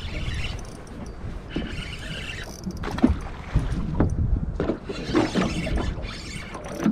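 Wind buffeting the microphone, with sharp knocks on the aluminium boat and the clicking and hiss of a spinning reel being worked against a hooked fish.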